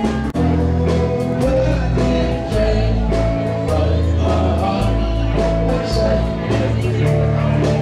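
Live country-western band playing: electric guitars and a drum kit over a steady bass line, with a man singing.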